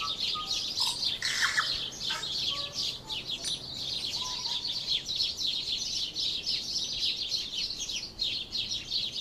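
Outdoor chorus of rapid, high-pitched chirping, continuous and dense, with a few short whistled bird notes in the first three seconds.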